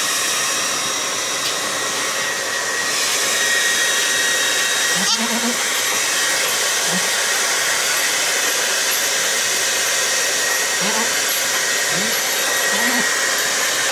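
Handheld hair dryer blowing steadily, a constant rushing hiss with a faint whine in it, with a few short low grunts over it.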